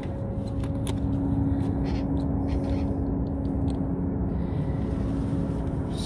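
Steady machinery hum with a constant low tone, with faint scattered crackles and drips in the first three seconds.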